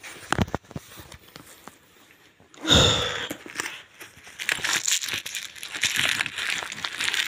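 A food wrapper being crumpled and rustled, with a loud burst of crinkling nearly three seconds in and steady crackling crinkles through the last few seconds.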